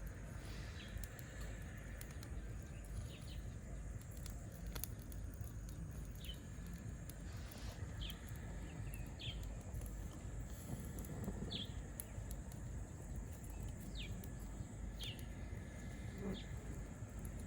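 Outdoor ambience with a steady low rumble, over which a bird gives short, sharp downward-sliding chirps about once a second.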